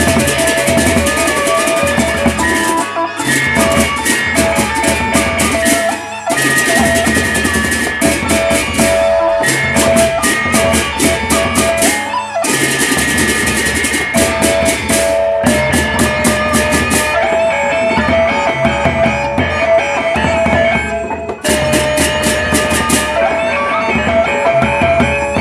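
Sasak gendang beleq ensemble playing: large double-headed barrel drums beaten with sticks, dense clashing hand cymbals and ringing gongs in a fast, driving rhythm. The cymbals drop out for a moment a few times.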